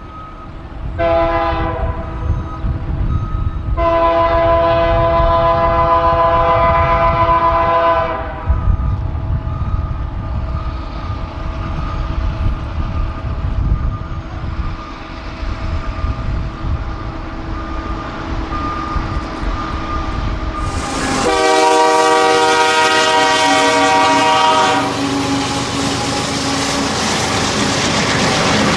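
Canadian Pacific diesel locomotive leading a freight train, sounding its air horn: a short blast, a long blast, another long blast about twenty seconds in and a fresh one just at the end, over the steady low rumble of the diesels. From about twenty seconds in, the loud rushing noise of the train running close past joins it.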